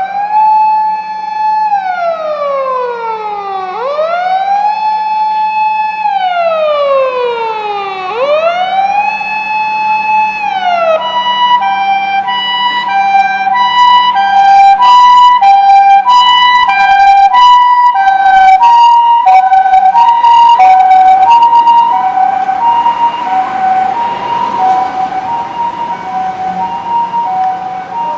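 Japanese ambulance's electronic siren: first a wail that rises quickly and falls slowly, about once every four seconds, then about 11 seconds in it switches to the two-tone hi-lo "pee-po" of alternating high and low notes. It grows louder toward the middle and fades near the end.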